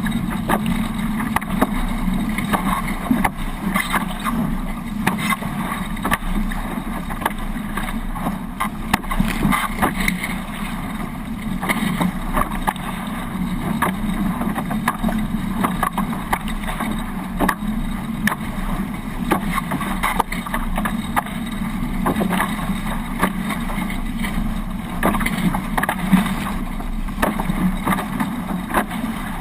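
Water rushing and splashing along the hulls of a Hobie 18 catamaran under sail, with wind buffeting the microphone: a steady rushing noise broken by frequent short splashes.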